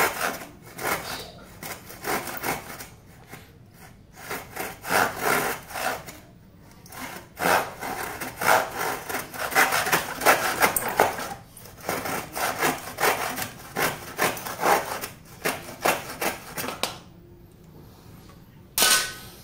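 A Calciper hand saw with triple-ground teeth cutting through a dry wooden batten in quick back-and-forth strokes, the teeth rasping through the wood, with two short pauses. The strokes stop near the end, and a single sharp knock follows.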